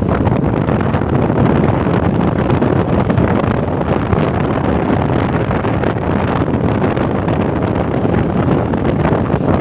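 Steady wind rush on the microphone mixed with motorcycle engine noise, as heard from a moving motorcycle riding in a group.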